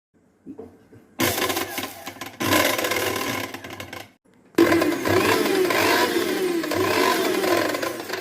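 A Crompton mixer grinder running in two bursts: it starts about a second in, stops about four seconds in and starts again half a second later.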